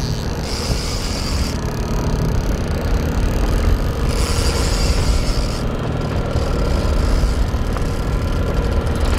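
Boat engine running steadily at trolling speed, a loud low rumble. Two short higher whirring hisses come about half a second in and again about four seconds in.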